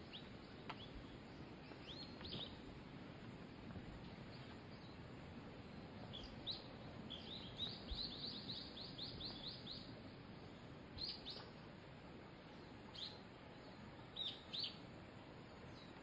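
A small bird calling with short, high descending chirps: a few scattered pairs and a fast run of about a dozen notes in the middle, over a faint steady low background hiss.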